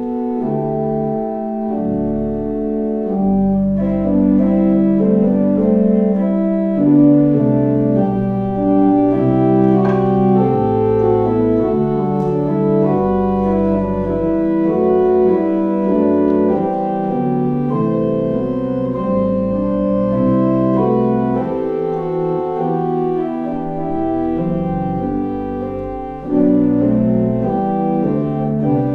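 Church organ playing slow, sustained chords, the notes held and moving step by step; the music dips briefly near the end before a louder chord.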